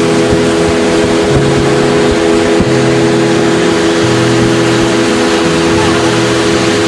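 Small motorboat's engine running steadily under way, over a dense rush of noise.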